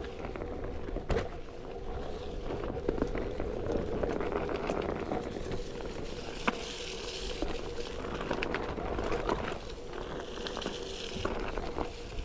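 Onewheel electric board riding over a dirt trail: a steady hum from its hub motor, fading somewhat after the first few seconds, with scattered clicks and crackles from the tyre rolling over leaves and twigs.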